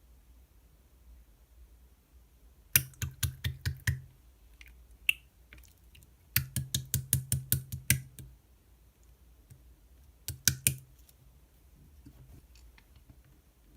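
Purple slime being pressed and worked by hand, making runs of sharp clicking pops at about six a second: a run of about a second, a longer run of about a second and a half, then a short burst of three.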